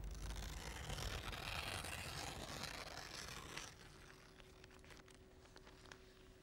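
Newspaper pages rustling under a hand, a dry papery rustle that dies away about three and a half seconds in. Only faint scattered ticks and a steady low hum follow.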